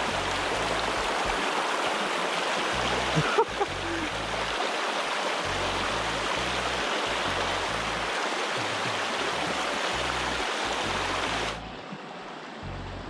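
Rushing water of a rocky stream's rapids, a steady loud hiss close by, with a short click about three and a half seconds in. Near the end it drops abruptly to a quieter flow of calmer water. A low music bassline runs underneath.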